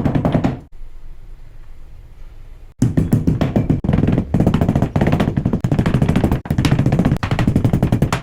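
Background music with a quick steady beat, dropping to a quieter passage for about two seconds near the start.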